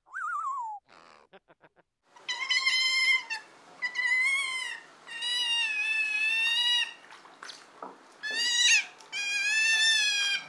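An animal calling: a short falling note, then five drawn-out, high, wavering cries, each about a second long.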